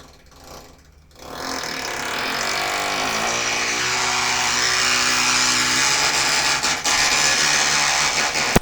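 A power tool running loudly with a harsh, grinding noise. It starts about a second in and carries a motor hum that rises and falls in the middle, then stops with a sharp click near the end.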